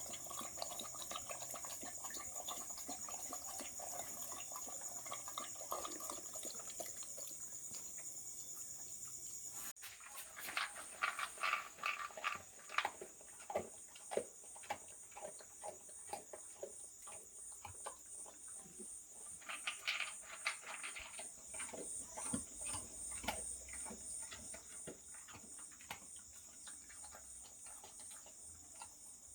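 Insects chirping steadily in a high, pulsing tone, over a steady hiss that cuts off abruptly about ten seconds in. After that come irregular sharp crunching clicks in bunches: a Jindo dog chewing dry kibble.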